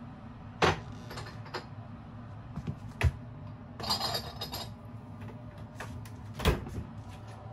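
A few sharp clicks and knocks, with a brief rattling cluster about four seconds in, over a steady low hum.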